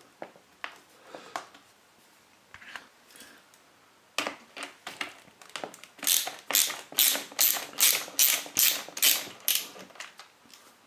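A ratchet driver clicking while undoing the Torx screws on a plastic hedge trimmer housing. There are scattered clicks at first, then from about halfway a steady run of sharp clicks, about three a second.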